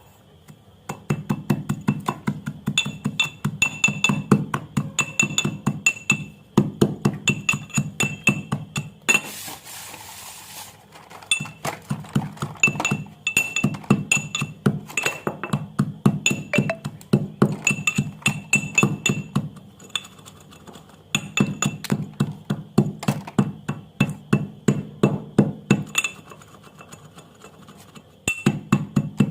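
White slate pencils being crushed by rapid pounding in a vessel that rings at each strike: runs of quick clinking strikes, several a second, in bursts of a few seconds with short pauses between. A brief hiss of crumbling powder around ten seconds in.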